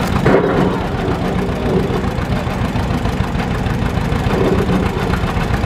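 John Deere two-cylinder tractor engine running at low speed with a steady pulsing beat, creeping along a balance beam.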